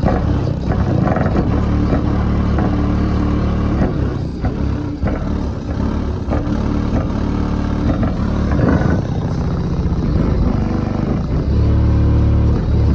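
Loud, bass-heavy music played through a car audio system of four FI BTL 15-inch subwoofers on a 12,000-watt amplifier, heard from outside the Chevy Blazer. Deep bass notes are held for a second or more at a time.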